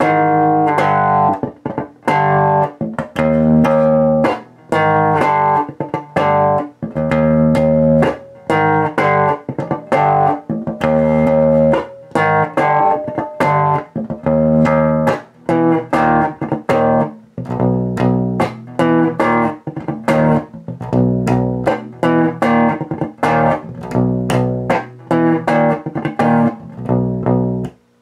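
Warwick Rockbass Infinity five-string electric bass played with a clean tone through a bass amp. It repeats a slowed-down riff of strummed power chords that slide down a fret, broken up by muted strums.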